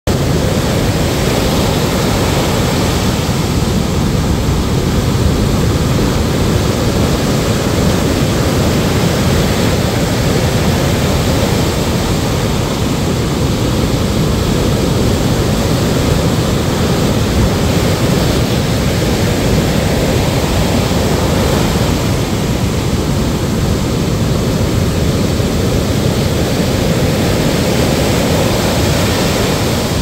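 Rough surf stirred up by a passing typhoon, breaking and washing up a sandy beach: a loud, continuous rush of waves with a deep rumble underneath, swelling and easing every several seconds.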